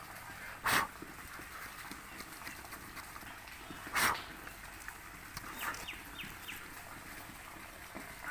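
Two short rasping strokes of a Swiss Army knife's small wood saw cutting into a thick green branch, about three seconds apart, with faint scraping and clicks between them.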